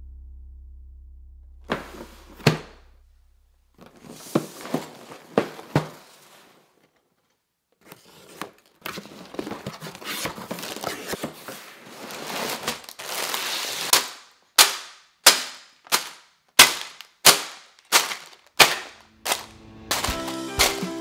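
Bagged Lego pieces rattling and clinking in their plastic bags as they are handled and dropped onto a tabletop, then about seven sharp drops roughly two-thirds of a second apart. Music comes in near the end.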